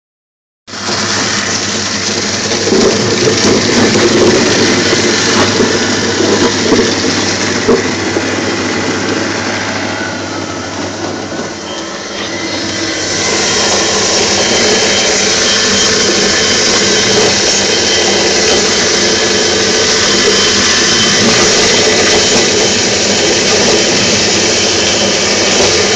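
Home-built apple pulping machine running, its spinning drum chopping apples into pulp. It starts about half a second in, eases off a little near the middle, then runs steadier with a faint high whine.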